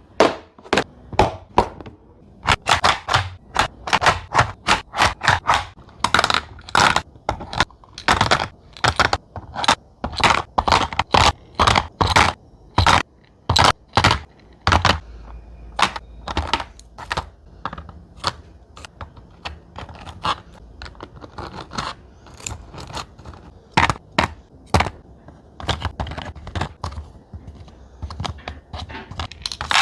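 Sweets being set and dropped into a platter: a long, irregular run of sharp clicks, taps and thunks, with a few denser spells of rattling and scraping.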